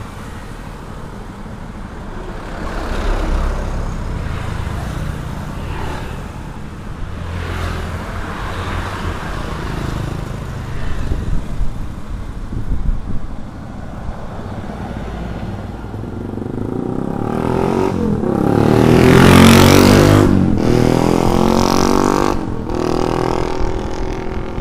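Road traffic heard on the move: steady engine and road noise. About seventeen seconds in a louder vehicle draws near and passes, its sound sweeping in pitch and loudest around the twentieth second, then fading.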